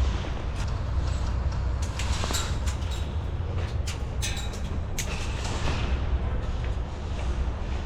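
Airsoft guns firing: a dozen or so sharp, irregularly spaced cracks, bunched in the middle of the stretch, over a steady low rumble.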